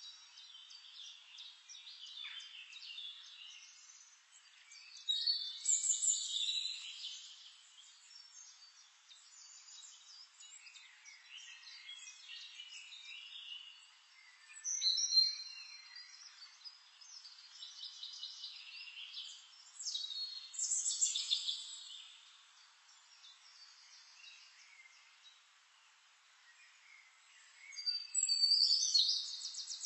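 Songbirds singing and chirping: a steady chatter of high twittering with louder bursts of song about 5, 15, 20 and 28 seconds in.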